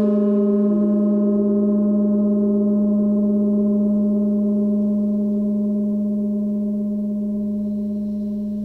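A 26-inch Paiste Symphonic Gong sounding a sustained low tone with a stack of overtones. It is being played with the 'super ball' friction technique: a rubber-tipped mallet with rosin on it, here a latex glove fingertip over a mallet head on a skewer, rubbed across the gong face. The tone holds steady, then slowly fades over the second half once the rubbing stops.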